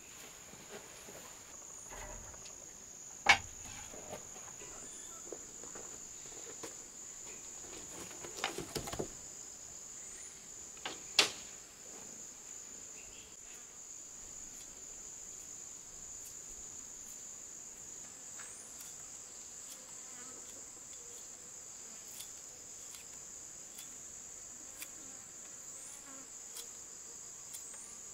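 Insects chirring in a steady high-pitched drone, with a few sharp knocks in the first half, the loudest about three seconds in.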